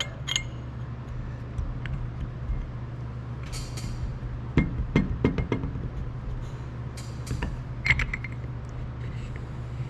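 Light metallic clicks and taps as a new piston, wrist pin and connecting rod are handled and the lubed pin is pushed through into a tight fit. The clicks come in two clusters, about five seconds in and again around seven to eight seconds, over a steady low hum.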